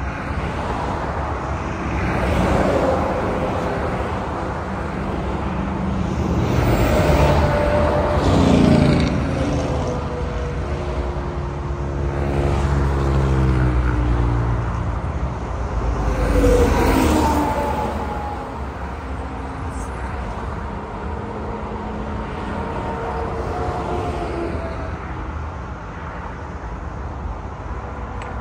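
Highway traffic passing close by: cars and trucks go past one after another, the road noise swelling and fading with each, and their engine tones drop in pitch as they go by.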